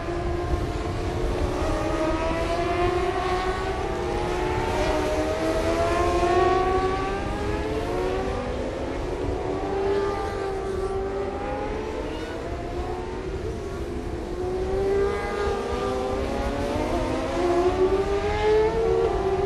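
Several supersport 600 racing motorcycle engines running hard together, their pitches rising and falling and overlapping as the bikes accelerate and slow.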